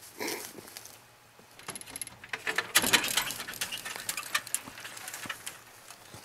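Close rustling, scraping and clicking handling noise, with a short burst just after the start and a busier stretch from about two and a half seconds in, as the camera rubs against a flannel shirt.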